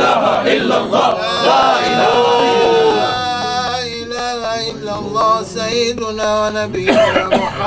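Group of men's voices chanting Sufi dhikr together in a loud, overlapping chant. About three seconds in, the chant thins into long, steady held notes.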